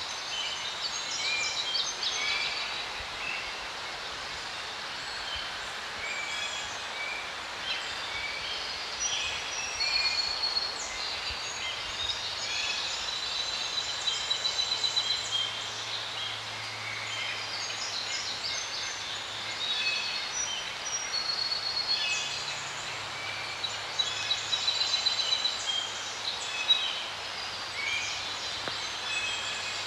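Several songbirds chirping and trilling in the forest, with many short calls and repeated rapid trills throughout. A faint low steady hum comes in about a third of the way through and runs underneath.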